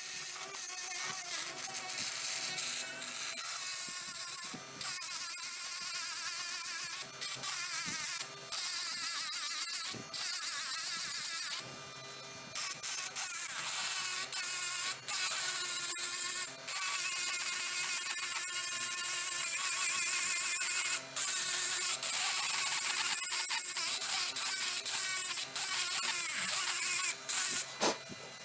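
Small hand-held rotary tool whining as its bit engraves grooves into a metal axe head, the pitch wavering as the bit bites. It cuts out briefly several times.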